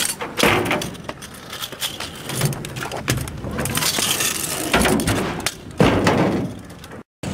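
Kick scooter's wheels rolling on skatepark concrete, with several sharp clattering knocks as the scooter lands and strikes the ramps.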